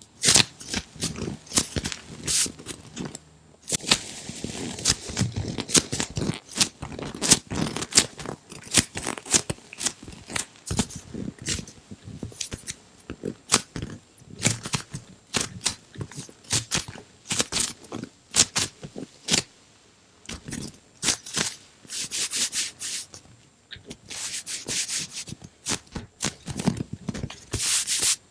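Giant watermelon squishy, a soft polyurethane foam toy, squeezed, pressed and rubbed by hand close to the microphone. It gives a dense, irregular run of sharp crackling clicks and creaks, with a few stretches of soft rubbing.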